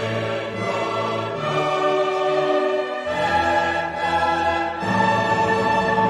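Orchestral classical music with a choir singing sustained chords; the harmony and bass line shift about three seconds in.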